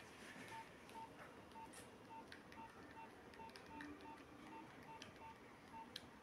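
Faint electronic beeping: short beeps at one steady mid pitch, repeating about two and a half times a second, with a few light clicks of handling.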